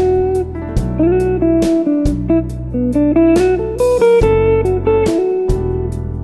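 Smooth jazz instrumental: an electric guitar plays the lead melody over a bass line and drums with regular cymbal strikes.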